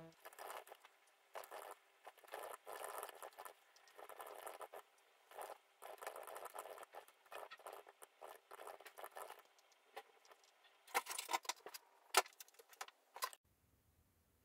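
Faint, irregular rustling and clicking of small objects being handled, with a few sharper clicks near the end before it cuts off suddenly.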